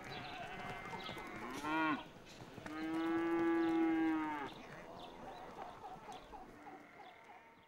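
Cattle mooing: a short moo about two seconds in, then a long, steady moo lasting nearly two seconds.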